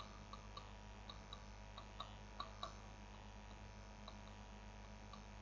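Near-silent room tone with a steady low electrical hum and faint, light ticks at irregular intervals, several a second in places.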